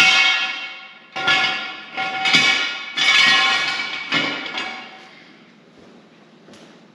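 Metal parts clanking together, about half a dozen sharp knocks in the first five seconds, each one ringing on like struck steel before dying away.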